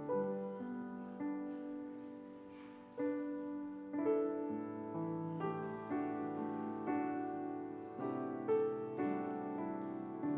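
Grand piano playing slow chords, a new chord struck about once a second and each left to ring and fade.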